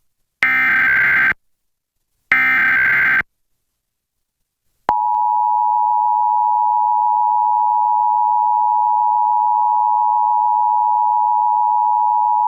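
Two bursts of an Emergency Alert System SAME header, about a second each with a second's gap, the warbling digital data tones that encode the alert. About two seconds of silence follows, then the EAS two-tone attention signal (853 and 960 Hz together) comes in suddenly about five seconds in and holds as one steady tone, announcing the nationwide test alert.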